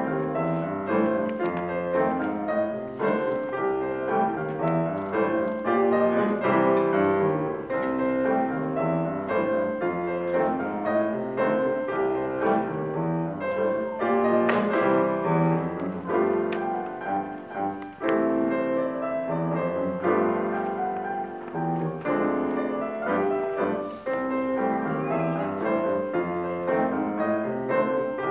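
Steinway concert grand piano playing a simple beginner-level piece, notes sounding one after another without a break.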